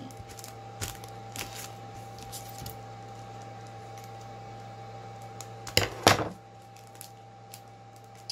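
Desk handling sounds of plastic sleeves and card: scattered light taps and rustles, with two sharp, louder clicks close together about six seconds in, over a steady electrical hum.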